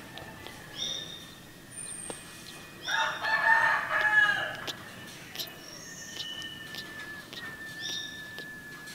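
Animal calls: one long, loud call about three seconds in, with short high chirps before and after it and a faint steady high tone underneath.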